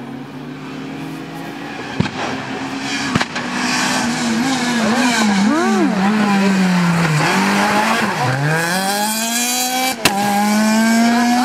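Renault Clio rally car at full throttle, its engine note rising as it approaches. The note wavers and then falls steeply as the car brakes through the bend, before climbing hard again as it accelerates away. Sharp cracks come a few times, and a gear change near the end briefly drops the pitch.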